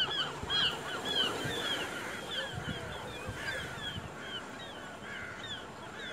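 A group of birds calling: many short, falling cries in quick succession, crowded at first and thinning out toward the end.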